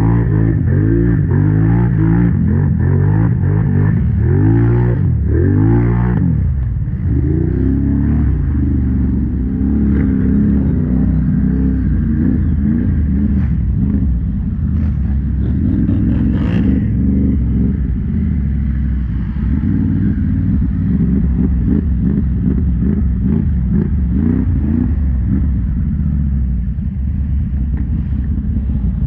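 Quad bike (ATV) engine running hard under load through mud, its pitch rising and falling repeatedly as the throttle is worked, strongest in the first few seconds, then steadier.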